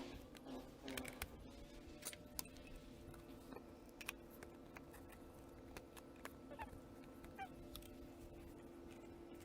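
Near silence: a faint steady hum with scattered light clicks and taps.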